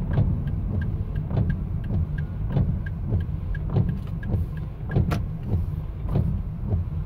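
Road and tyre noise inside a car cabin on a wet road, with the windshield wipers sweeping and making a short squeak at each stroke, about once a second. A faint regular ticking runs underneath.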